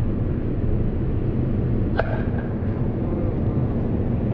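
Outdoor ballpark ambience: a steady low rumble, with one sharp crack of an impact about two seconds in.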